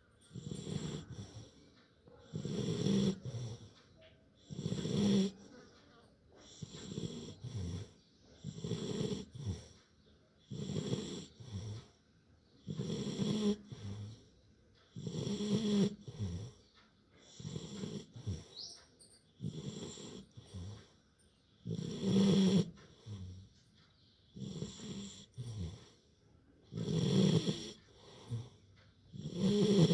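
Labrador puppy snoring loudly in its sleep, one snoring breath about every two seconds in a steady rhythm.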